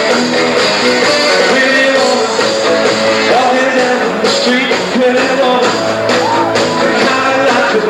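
Live rock band playing a rock-and-roll number: electric guitar and drums, with a male singer's voice over the band.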